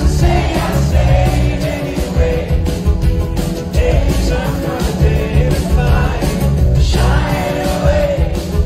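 Live rock band in concert: a male lead singer singing over drums, bass and acoustic guitar, recorded from within the audience.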